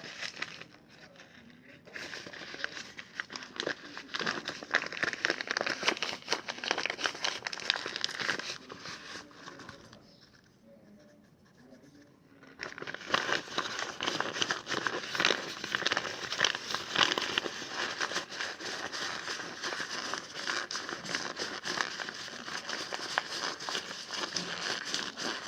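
A runny slime mixture of glue, cornstarch and saline solution being stirred in a plastic pot: a dense, wet crackling, with a pause of about two and a half seconds near the middle. The mix is still watery and has not set into slime.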